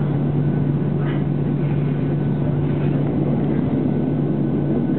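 Boeing 737-800's CFM56 engines running at low power, heard from inside the passenger cabin as a steady low hum with a faint high whine over a constant rush.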